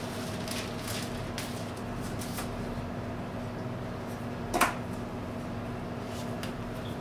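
Wooden blocks and wax paper being handled and set down on a workbench: soft taps and rustles, with one sharp knock about four and a half seconds in, over a steady low hum.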